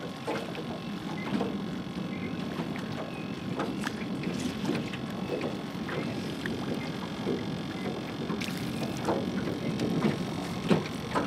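Water lapping and slapping against the hull of a small boat, with wind on the microphone and scattered short knocks and clicks.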